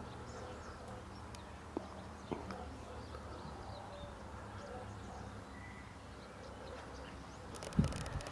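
Faint outdoor ambience: a steady low rumble with faint high chirps, two light clicks about two seconds in, and a louder thump near the end.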